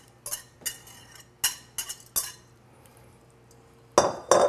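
Metal spoon clinking and scraping against a glass mixing bowl while the last of a thick marinade is scraped out. Several short, sharp clinks come in the first couple of seconds, then a louder clatter of knocks near the end.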